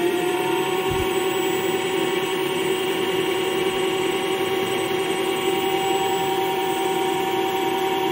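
Home-built CNC lathe spindle running at about 800 RPM, a steady whine with several tones that has just finished spinning up at the start. It cuts off suddenly at the end.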